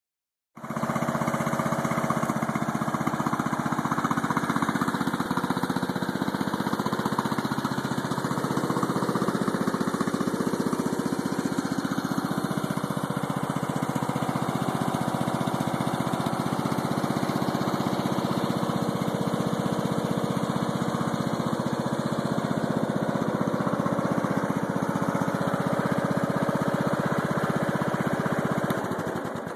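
Huskee riding lawnmower's OHV engine idling steadily and smoothly, its carburetor freshly cleaned. Near the end the engine is switched off at the key and runs down.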